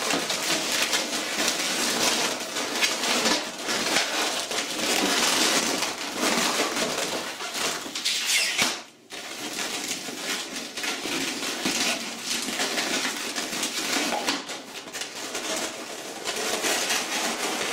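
Inflated 260 latex modelling balloons squeaking and rubbing against each other as they are twisted and locked together by hand. The sound dips out briefly about halfway through.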